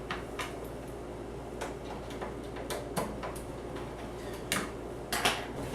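Scattered light clicks and taps from computer parts being handled as connectors and wiring are pulled out of a server case, over a steady low hum; the sharpest clicks come near the end.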